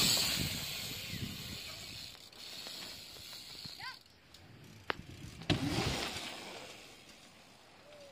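Bicycle tyres rolling over dirt and grass, whooshing loudest at the start and fading, then swelling again about five and a half seconds in, with a few sharp clicks and knocks from the bike just before that.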